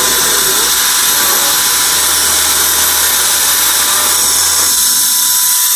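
EUKI F31 rechargeable turbo-fan air duster running at its second, middle speed: a steady motor whine over a rush of blown air.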